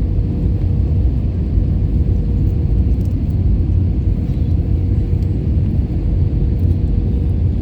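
Airliner cabin noise in flight: a steady, loud low rumble of the engines and airflow, with a faint steady hum running through it.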